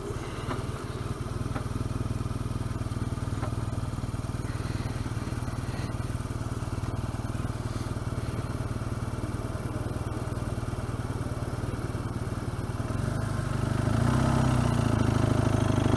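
BMW R1200GS boxer-twin engine running steadily at low revs, a low hum. It grows louder about two seconds before the end.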